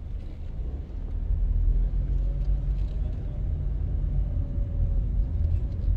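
Low, steady rumble of a car driving slowly, heard from inside the cabin, a little louder from about a second in.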